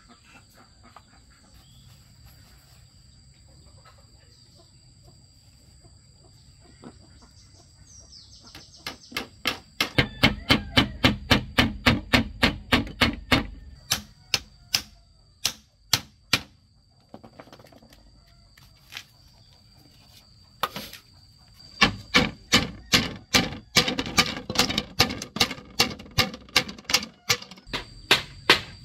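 Small hammer nailing bamboo slats to a bamboo frame: quick runs of sharp taps, about four a second, with a few single strikes between the runs.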